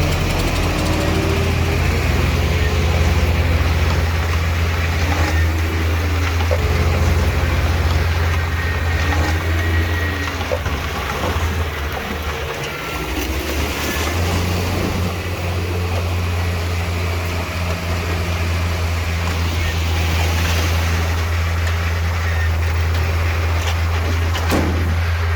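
Diesel engine of heavy earthmoving machinery running with a steady low drone, easing off briefly about halfway through, then back to the same level.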